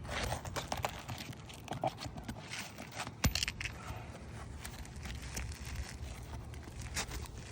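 Asphalt shingles being worked loose on a roof: scraping and crinkling, with scattered sharp taps of a tool. One louder knock comes about three seconds in and another near the end.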